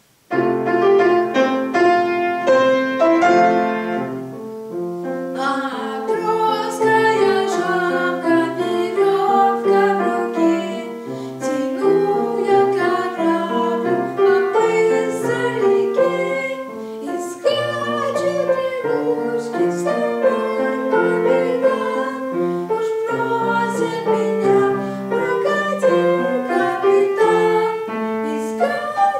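Grand piano playing a song accompaniment, starting abruptly just after the start.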